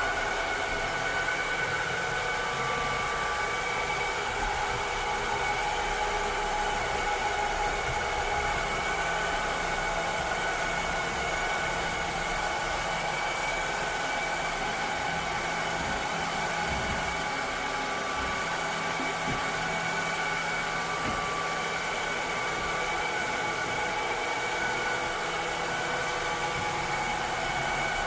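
A cleaning robot's motor and fan running steadily: an even whirring hiss with a few constant whining tones.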